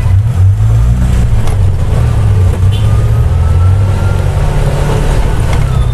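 TVS King auto-rickshaw's single-cylinder engine running steadily in second gear as it pulls, heard from the driver's seat. A faint whine rises slightly in pitch through the middle.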